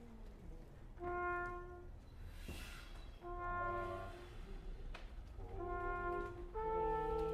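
Trumpet and trombone playing a string of held notes, each about a second long with short gaps between, the later ones in two parts. A breathy hiss sounds once between notes.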